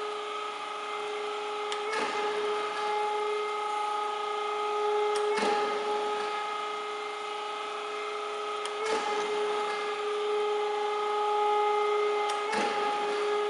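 ELB 14" x 36" automatic hydraulic surface grinder running, with a steady whine from its motors. The hydraulic table traverses back and forth and gives a sharp knock at each reversal, about every three and a half seconds, four times in all.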